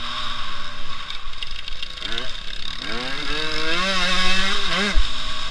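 Motocross bike engine under riding load, heard from the rider's helmet: the pitch holds steady at first, then rises twice as the rider opens the throttle, with a quick rev up and down near the end, over a steady rush of wind noise.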